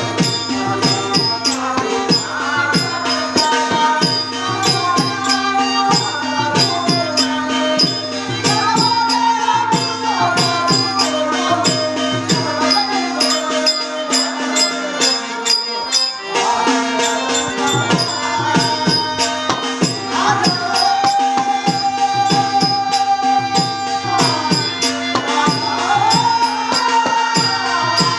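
A man singing a drawn-out, gliding melodic verse for a stage drama, over a steady drone and quick hand-percussion strokes. The singing breaks off briefly about halfway through.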